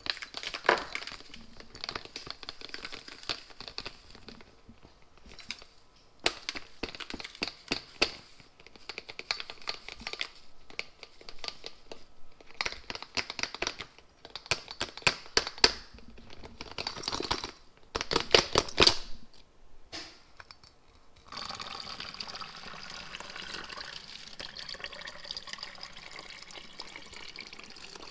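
Coarse Himalayan pink salt rattling and crackling as it is worked through a stainless steel funnel into a plastic bottle, in uneven clusters of small clicks. About 21 seconds in, a kitchen faucet starts running steadily into the bottle, filling it with water.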